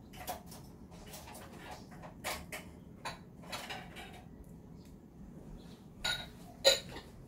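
Fingers peeling the charred skin off soft roasted tomatoes: a run of short, wet, sticky peeling and squishing sounds, with two sharper, louder ones near the end.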